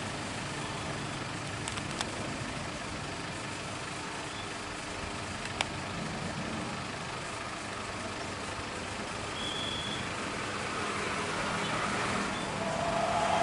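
Jet engine noise from a Garuda Indonesia Boeing 737-800 climbing out: a steady rumble that grows louder over the last couple of seconds.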